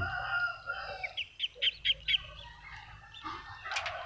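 A rooster crowing, its call ending about a second in, followed by a quick run of about five short, high, rising peeps. A sharp click comes near the end.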